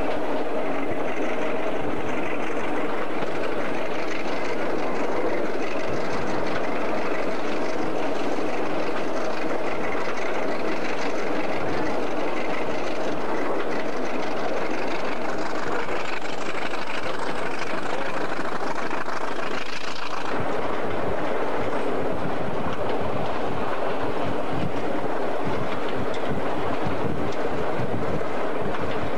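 Passenger train running along the line, its wheels clattering over the rails with a steady rumble. About two-thirds of the way through the sound changes abruptly, then carries on with a run of regular low knocks.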